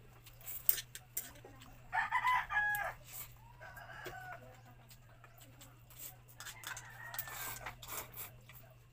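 Chickens calling: a loud crow about two seconds in, with fainter calls around four and seven seconds. Under them, light clicks of chopsticks against a bowl and eating noises, over a steady low hum.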